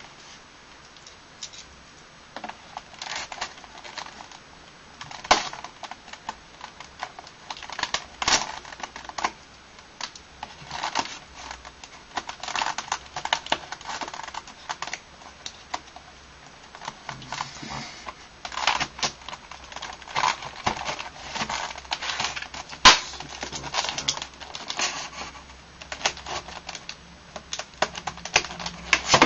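Hands handling and working open a cardboard retail box with a clear plastic window. It gives irregular clicks, taps and crinkling rustles of cardboard and plastic, with a few sharper snaps.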